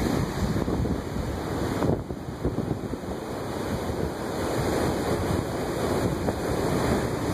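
Heavy storm surf breaking and washing over the rocks of a harbour breakwater in a nor'easter, a continuous rushing of water that dips briefly about two seconds in. Strong wind buffets the microphone.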